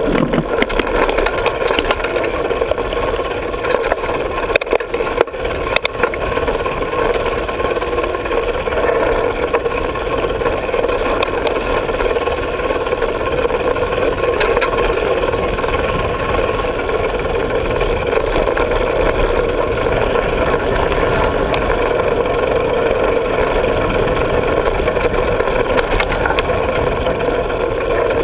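Steady rush of wind over an action camera's microphone mixed with the rumble and rattle of a Diamondback hardtail 29er mountain bike riding fast down a rough dirt trail, with frequent small knocks from bumps.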